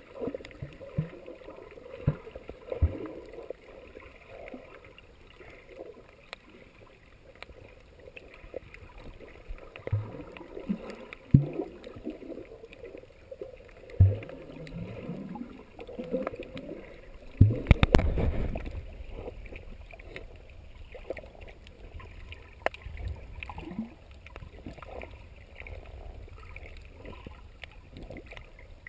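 Muffled underwater gurgling and sloshing picked up by a camera held beneath the surface while snorkeling. Scattered knocks and short bubbly gurgles run through it, and the loudest stretch of churning water comes about two-thirds of the way in.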